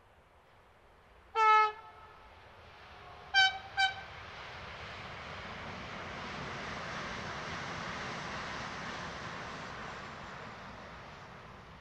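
Alstom ETR 104 Pop electric multiple unit sounding its two-tone horn: one short lower blast, then two quick higher toots. The train then passes at speed with a rush of noise that swells and fades away.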